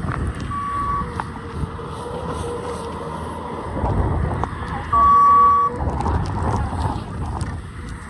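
Street vehicle rumble with two high electronic beeps, a short one near the start and a longer, louder one about five seconds in.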